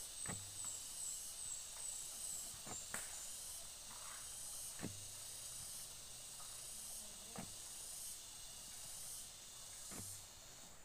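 Faint rural outdoor ambience: a steady high hiss like insects, with a quick run of short high chirps in the first couple of seconds and a few soft knocks scattered through.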